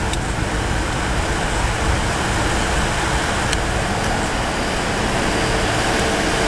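Steady cabin roar of a Fokker 100 airliner in the climb after takeoff: the rear-mounted Rolls-Royce Tay turbofans and the rush of air past the fuselage, with a faint steady hum running through it.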